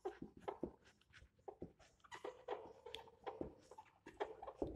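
Faint squeaks and scratches of a marker pen on a whiteboard: a quick, irregular run of short strokes as a word is written out by hand.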